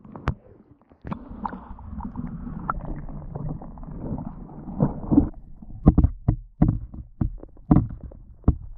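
Muffled water noise heard through an underwater camera's housing as it goes down through an ice-fishing hole, opening with two sharp clicks. From about five seconds in, a string of irregular dull knocks.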